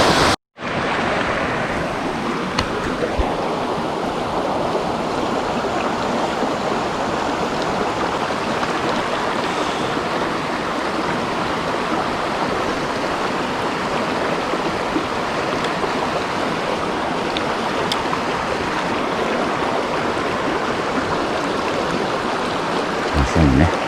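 Mountain stream water rushing, a steady even wash with no change; the sound drops out for an instant about half a second in, then carries on.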